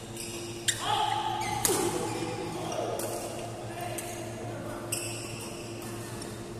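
Badminton rally: rackets striking the shuttlecock about five times, roughly a second apart, each hit a sharp smack with a short ring in the hall, over a steady low hum.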